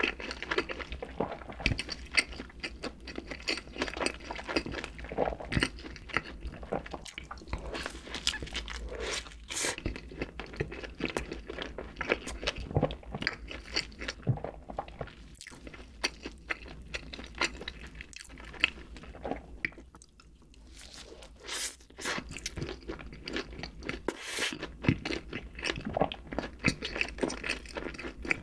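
Close-miked chewing and crunching of crunchy food, with dense irregular crackles and a few sharper bites. There is a short quieter lull a little past two-thirds of the way through.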